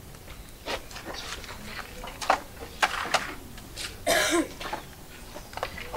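Scattered light clicks and taps, with one short cough about four seconds in, the loudest sound.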